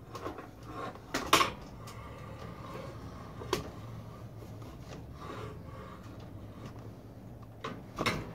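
Metal encoder bracket and loose hose clamps clicking and knocking against a dome drive motor as the bracket is worked into place by hand. There are a few sharp clacks, loudest about a second in, with others midway and near the end, over a low steady hum.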